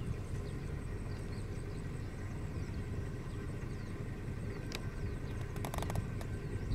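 Low, steady rumble of a vehicle engine running, with faint bird chirps over it and a quick run of clicks about five to six seconds in.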